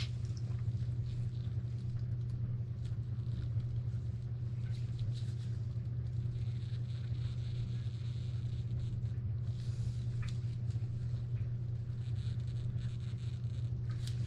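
A steady low hum, with faint, irregular rustling and scraping as gloved hands twist a painted scintillator block on a photomultiplier tube.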